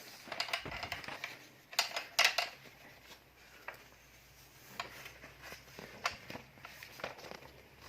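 Scattered clicks and knocks of hard plastic tool parts being handled, with a cluster of sharper knocks about two seconds in.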